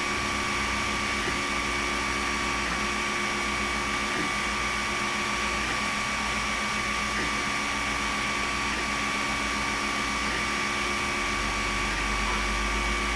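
Creality Ender 5 Plus 3D printer running while it lays down infill. Its fans give a steady hum with a constant high whine. Over that, the stepper motors whine in low tones that shift and break off every second or so as the print head changes moves.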